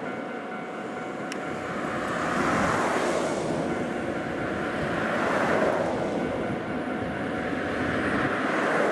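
Road traffic passing on an adjacent road, each car swelling and fading every few seconds, over the low drone of an approaching Japanese National Railways KiHa 40-series diesel railcar train.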